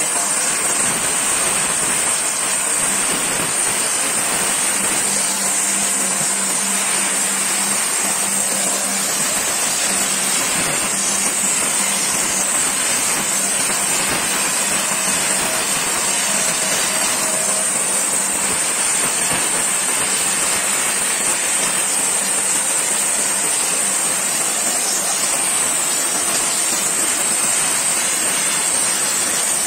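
Gas flame torch burning with a steady, unbroken hiss as it is played over the face of a stone slab to give it a flamed finish.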